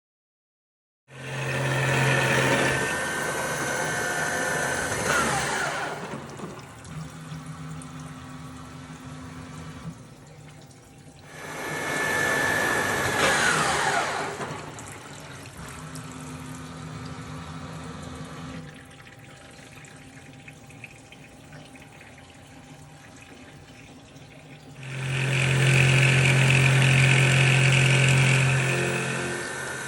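Old drilling/milling machine running in three loud spells with a steady whine. The first two wind down with a falling pitch into a quieter steady hum.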